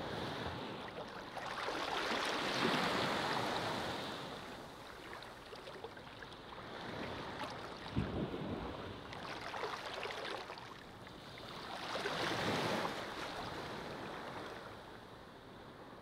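Sea waves washing onto a beach, swelling and fading in slow surges, loudest about three seconds in and again near the end, with a brief low thump about halfway through.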